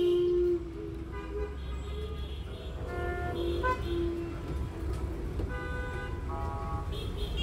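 Street traffic: vehicle horns honking in short tones at several different pitches over a steady low rumble of traffic.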